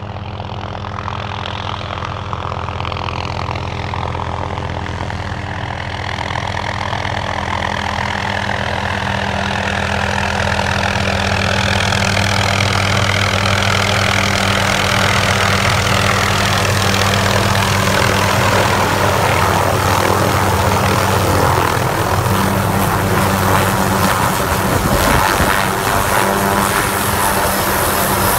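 MD 500 helicopter approaching and landing: a steady low rotor beat and a turbine whine that grow louder as it closes in, the whine sliding down in pitch. Rotor downwash buffets the microphone with gusty noise near the end, as it sets down close by.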